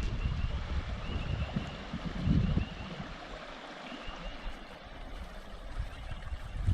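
River water running steadily, with a low rumble of wind on the microphone for the first two seconds or so.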